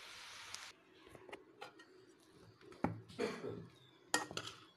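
A steady hiss cuts off under a second in. Then a steel spoon clinks, knocks and scrapes against a nonstick pan several times while cooked rice is mixed with tamarind paste for puliyogare.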